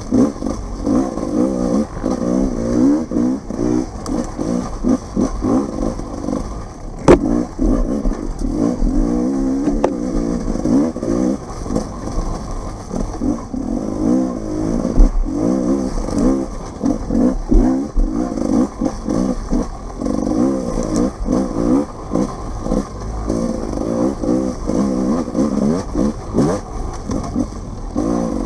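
Dirt bike engine revving up and down constantly as the bike is ridden hard off-road, with clattering over rough ground and a sharp knock about seven seconds in.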